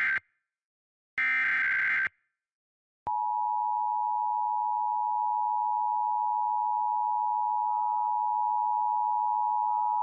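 Emergency Alert System required monthly test: the tail of one digital header burst and then one more full burst of shrill, screechy data tones, followed about three seconds in by the steady two-tone EAS attention signal, which holds unbroken.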